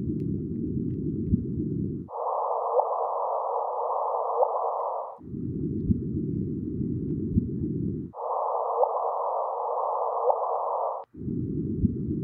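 LIGO's audio of the gravitational-wave signal from two black holes merging: short rising chirps about every second and a half in a hiss of detector noise. The clip alternates every three seconds or so between a low-pitched version and one shifted higher in pitch.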